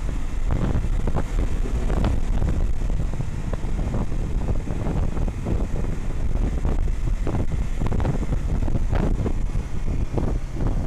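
Heavy wind buffeting an action camera's microphone on a Honda CBR150R at speed, in irregular gusts, with the bike's single-cylinder engine running underneath.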